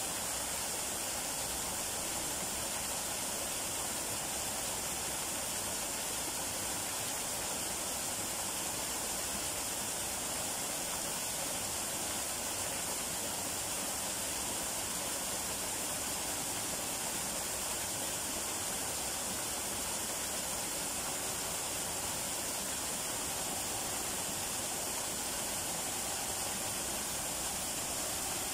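Small waterfall: thin streams of water falling down a rock face and splashing into a shallow pool, a steady, even hiss that does not change.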